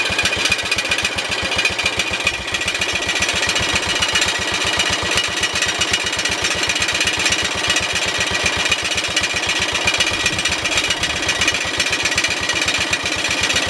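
A 1971 John Deere 140 H3 lawn tractor's single-cylinder Kohler engine running steadily, with an even, fast beat of firing pulses, just after a new carburettor was installed.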